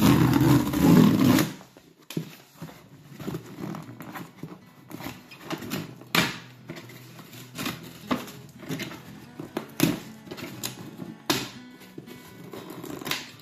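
Cardboard box's perforated tear strip being ripped open: one loud tearing rip at the start, then scattered crackles and scrapes of corrugated cardboard as the strip is pulled along and the lid flaps are lifted.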